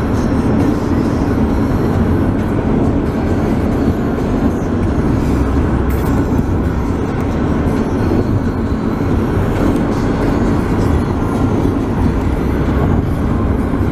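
Steady rumble of tyres and wind from a car driving at highway speed, heard from inside the car.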